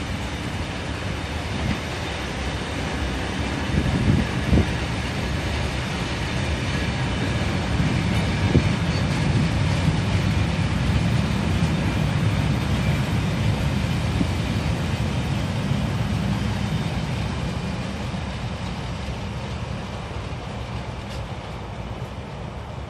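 Loaded open box freight wagons rolling along the track, their wheels rumbling steadily and clattering over rail joints and pointwork, with a few louder thumps. The rumble fades in the last few seconds as the wagons move on.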